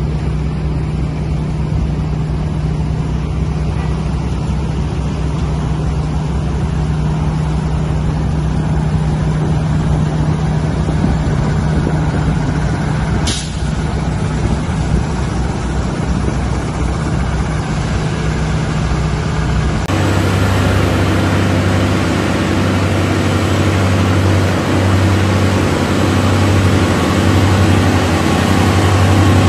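Heavy diesel trucks running, a steady low engine drone, with one brief high hiss near the middle. About two-thirds of the way in the sound changes abruptly to another group of heavy trucks running with a deeper, steady engine note.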